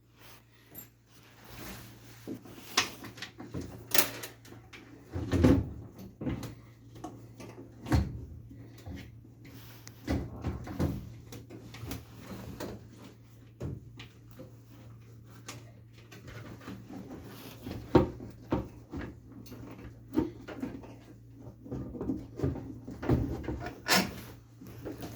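Irregular knocks, clunks and rattles of hands handling furnace parts, tools and sheet-metal panels, over a faint steady low hum.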